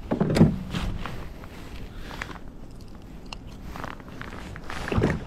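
Close handling noises while a caught bass is held and unhooked: rustling of a rain jacket and scattered small clicks and knocks, loudest about half a second in and again near the end.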